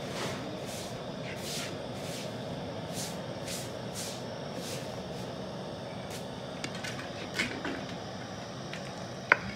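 Metal ladle stirring a large aluminium pot of boiling broth: short swishing strokes about every half second over a steady rushing background, then a few clicks and one sharp clink of the ladle against the pot near the end.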